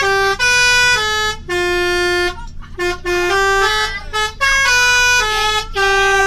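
Bus 'telolet' musical horn playing a quick tune of stepped notes, a string of short phrases and held notes with brief breaks between them.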